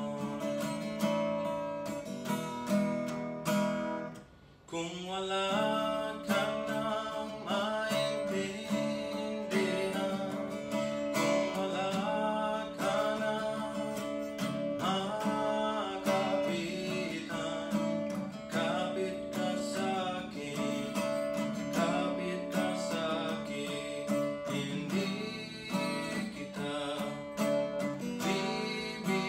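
Archtop acoustic guitar strummed in chords while a young man sings a Tagalog ballad over it. The music drops away briefly about four seconds in, then carries on.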